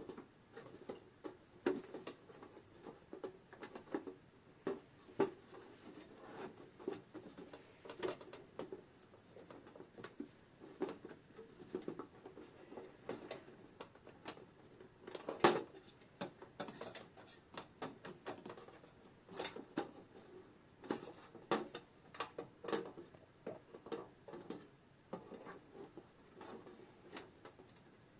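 Small hand tools working a stubborn little nut on the metal clock mechanism: irregular light clicks, taps and scrapes, with one louder click about halfway through.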